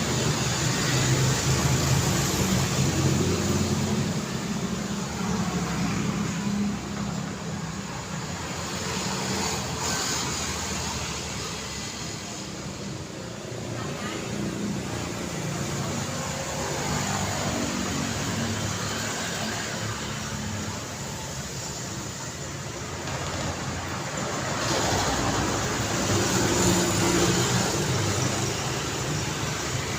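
City road traffic: a steady stream of cars with engine rumble and tyre noise, swelling louder as vehicles pass near the start and again near the end.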